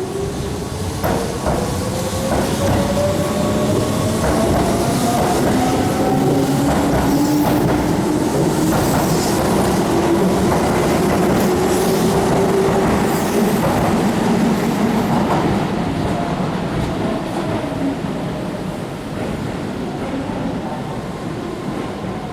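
A Keihan electric train pulling out, its traction motors whining in steadily rising pitch as it accelerates. Wheels rumble and clatter over rail joints, and the sound fades toward the end as it moves away.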